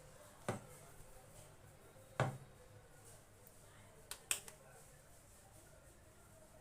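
A few short, sharp clicks and knocks from kitchen handling, four in all, the loudest about two seconds in and two close together past the four-second mark, over faint room tone.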